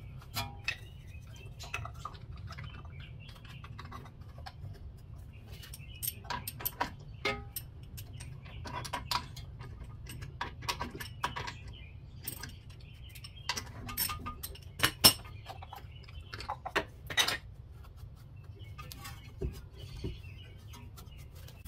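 Irregular metallic clinks and clicks of hand tools working on a disc brake caliper, with a few sharper clicks in the second half, over a steady low hum.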